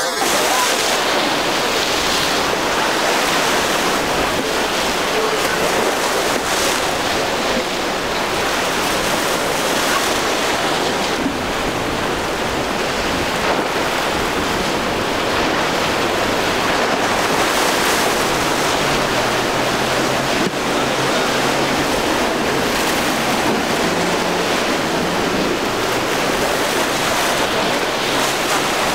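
Rough surf and breaking waves churning steadily, with wind buffeting the microphone. A low engine hum from outboard motors runs underneath from about two-thirds of the way through.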